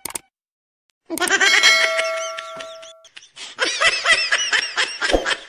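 Comedic meme sound effects over a subscribe-button animation: a couple of quick clicks at the start, then after a second of silence a high-pitched laughing sound effect, chattering in short rapid pulses of about five a second.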